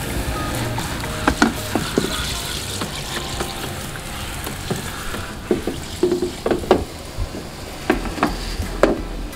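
Water spraying from a hand-held hose nozzle into the plastic tank of a Coway water purifier as it is rinsed, a steady hiss with a scatter of short clicks and knocks.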